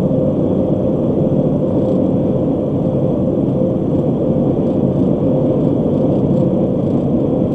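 Steady road and engine noise of a car cruising at highway speed, heard from inside the cabin, with a constant low hum.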